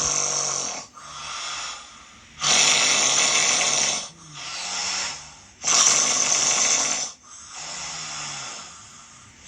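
A person snoring heavily: loud, rasping snores about every three seconds, with quieter breaths between them. The snoring sounds like choking, like someone being strangled, the kind of snoring a sleep-apnea clinic records.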